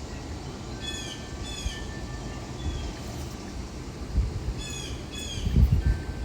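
Wild songbirds calling outdoors: two pairs of short, downward-slurred chirps, one pair about a second in and another near the end. Underneath, a steady low rumble of breeze on the microphone, gusting louder near the end.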